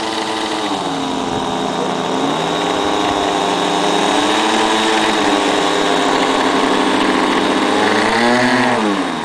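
Engines of a radio-control P-38 Lightning model plane in flight. Their pitch slides down about a second in, then rises and falls in a quick swoop near the end as the plane passes.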